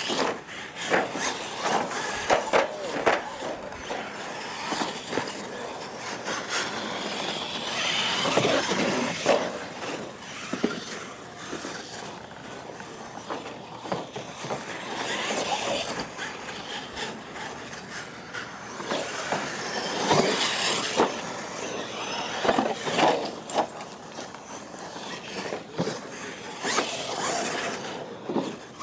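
Radio-controlled monster trucks racing over ramps on a dirt track: motors revving in spurts, tyres scrabbling on gravel, and repeated knocks and clatters as the trucks hit and climb the ramps.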